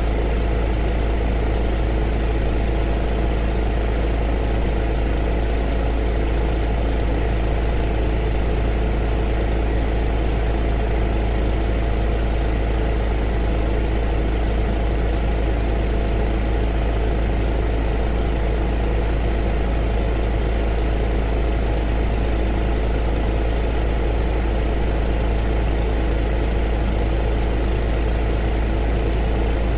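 Heater running: a steady deep hum with several steady tones above it and an even rushing noise, unchanging.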